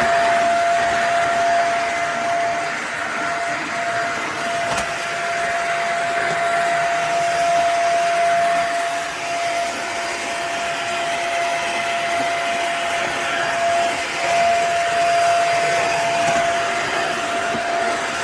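Beldray 2-in-1 stick vacuum cleaner running. It makes a steady rush of air under a constant motor whine that drops out briefly a few times.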